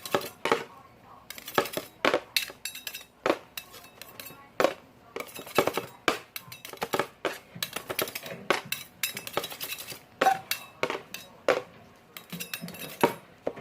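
Irregular sharp clinks and clicks of hard objects knocking together, several each second.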